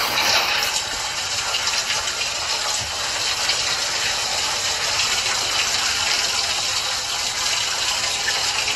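Steady rushing hiss, even in level throughout, with no clear speech over it.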